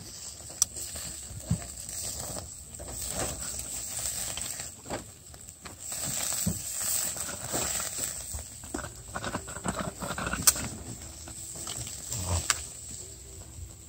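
Racks of ribs sizzling on a wire grill over a wood fire, with several sharp clicks of the metal tongs against the grate as the meat is turned and moved.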